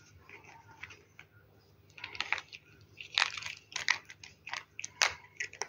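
A cat crunching dry kibble treats, with irregular sharp crunches that start about two seconds in.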